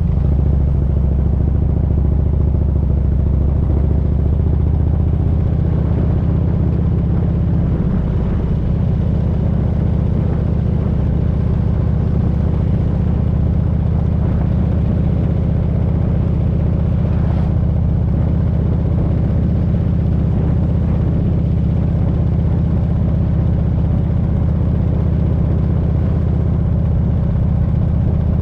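Motorcycle engine running steadily while the bike is ridden at an even pace.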